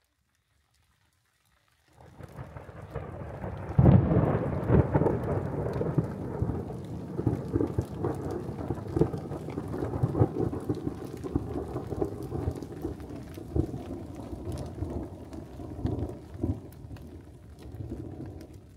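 Thunder over falling rain: the sound comes in about two seconds in, a loud clap of thunder breaks about four seconds in, and a long rolling rumble follows and slowly fades.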